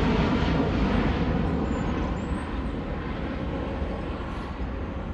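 Boeing 787 airliner's jet engines at takeoff climb power, a steady jet rumble and rush that fades gradually as the aircraft climbs away.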